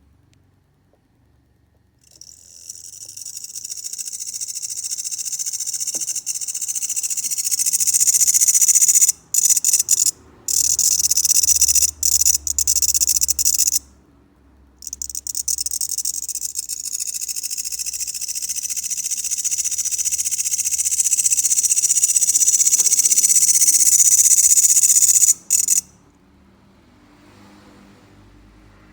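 Grasshopper stridulating: a loud, high, continuous buzz that starts about two seconds in and swells. It breaks off briefly a few times and pauses for about a second midway, then builds again and stops suddenly near the end.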